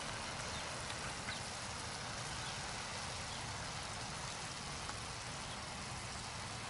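Pork longganisa sausages bubbling in boiling water in a frying pan: a steady sizzling hiss with a few faint pops.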